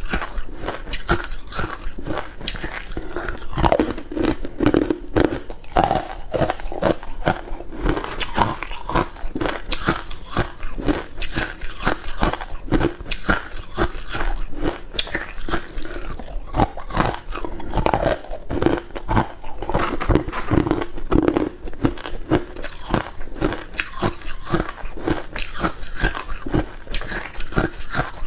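A person biting and chewing ice cubes close to the microphone: a dense run of irregular crunches and cracks as the ice breaks between the teeth.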